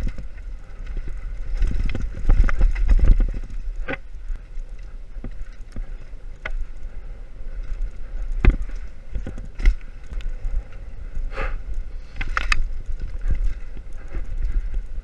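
Mountain bike riding fast down a dirt singletrack: a heavy low rumble of rushing air and trail on the camera's microphone, with scattered rattling knocks and clicks from the bike over bumps.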